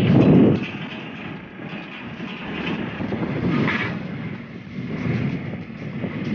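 Wind and road noise heard from a moving motorcycle, with the rush loudest in the first half-second and then easing.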